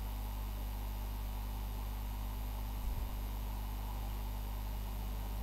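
Steady low hum and hiss of an open microphone, with one faint low bump about three seconds in.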